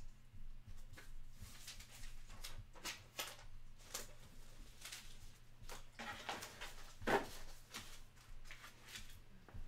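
Irregular soft clicks, taps and rustles of objects being handled, with one louder knock about seven seconds in, over a faint steady low hum.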